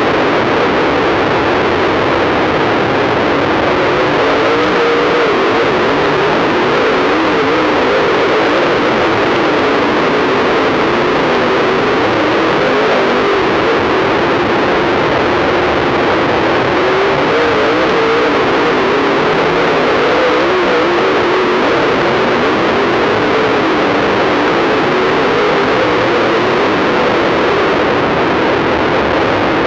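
Dirt super late model's V8 race engine running under racing load, heard through an overloaded in-car camera microphone so that it comes out harsh and distorted. Its note rises and falls continually with the throttle.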